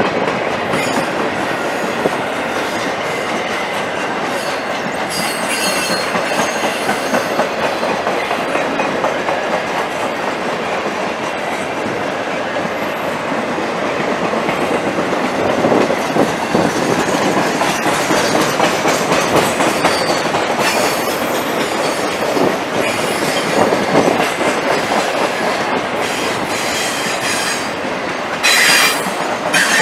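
Norfolk Southern Triple Crown RoadRailer train, highway trailers riding on rail bogies, rolling steadily past with a continuous rumble and clatter of wheels on rail. A brief louder rush of noise comes near the end.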